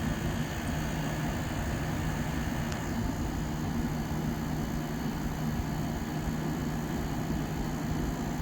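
1987 Montgomery Ward by Frigidaire 7000 BTU window air conditioner running steadily and cooling: fan air noise over a steady low hum.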